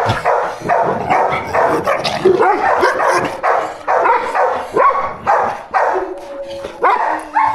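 Dog barking rapidly and aggressively at another dog, about two to three barks a second, ending in a short steady whine.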